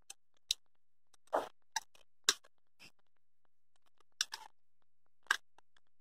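A small screw being turned by hand with a screwdriver through a rotary switch's plastic mounting flange into the panel: a scattered series of short clicks and creaks as the screw bites and turns.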